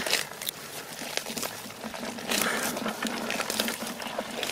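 Hands digging wet mud out of a crab burrow: squelching and wet scraping of mud, with grass stems rustling, a little louder about two and a half seconds in.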